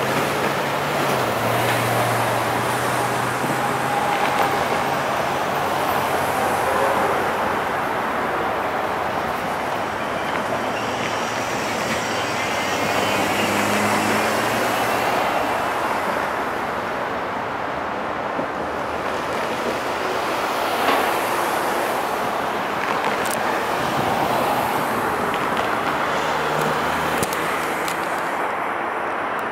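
Road traffic: cars and pickup trucks driving through the crossing, their engine and tyre noise rising and falling as each one passes.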